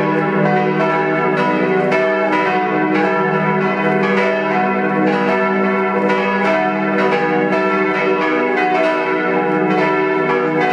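Four swinging church bells ringing together in a partial peal: three bronze bells cast by Czudnochowsky in 1950 (e', f♯', g♯') and one cast by Kortler in 1907 (b'). Their strikes fall in an irregular, overlapping pattern over a steady low hum.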